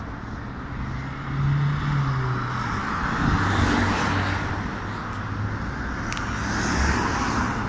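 Road traffic: cars going past, the sound of passing engines and tyres swelling twice, in the first half and again near the end.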